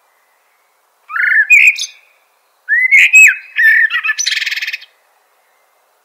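Northern mockingbird singing two short phrases of sliding whistled notes, the second ending in a fast rattling trill.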